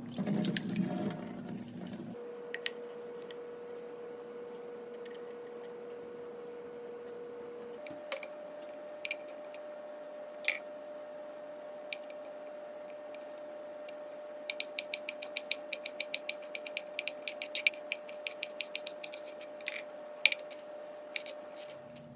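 Soaking water poured off wood ear mushrooms through a mesh strainer in a sink, followed by a knife cutting on a wooden chopping board: a few separate cuts, then a quick run of slicing taps over several seconds near the end. A faint steady hum sits underneath.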